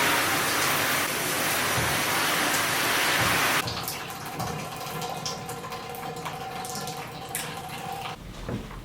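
Water running hard into a bathroom fixture, shut off abruptly about three and a half seconds in, followed by a few small clicks and knocks.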